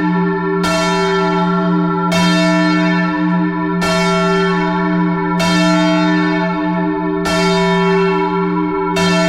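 Large church tower bells being rung up in English full-circle style, struck about every one and a half to two seconds as they swing. There are six strokes in all, each leaving a long, low hum that carries over into the next stroke.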